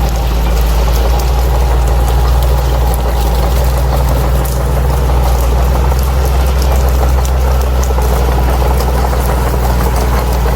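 Crawler bulldozer's diesel engine running steadily, a loud, even low drone with light clicking over it.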